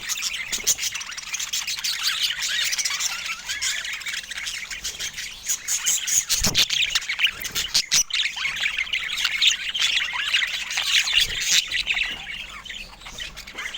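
Budgerigar chattering: a dense, fast run of chirps, warbles and squawks, with a brief pause about eight seconds in. A short low thump sounds about six and a half seconds in.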